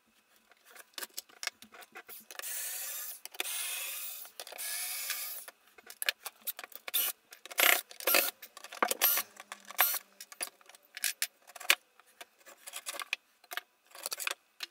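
Cordless drill running in a few runs of a second or two, backing screws out of a wooden frame. Then a string of short knocks and clatters as the loosened wooden pieces and steel rods are handled.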